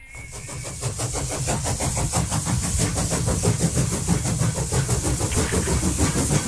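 A steady, fast-pulsing engine-like rattle that starts suddenly and keeps an even level.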